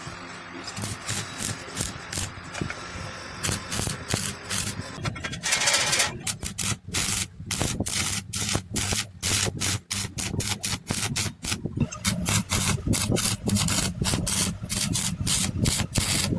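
Rapid, irregular rasping strokes of something being rubbed or sanded, coming thicker and faster after about six seconds.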